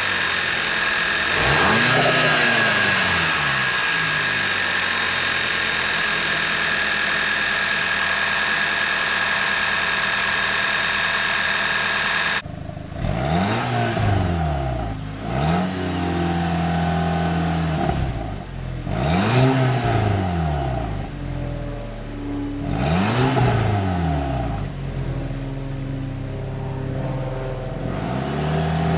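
2012 VW Eos engine idling and being blipped up in short revs several times, each rising and falling back to idle: a run-up test after new spark plugs, coils and PCV valve were fitted to cure a misfire.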